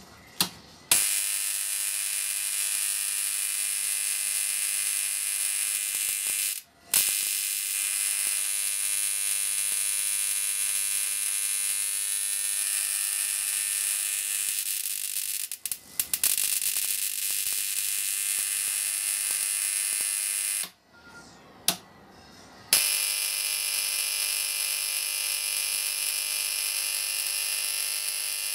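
High-voltage electric arc striking onto magnesium shavings, a steady loud buzzing hiss. It strikes about a second in, cuts out briefly three times and strikes again each time, with a sharp snap during the longest break.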